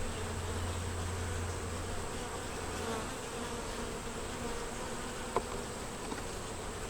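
Honey bees buzzing steadily around an opened hive during a frame-by-frame inspection, with one short sharp click about five seconds in.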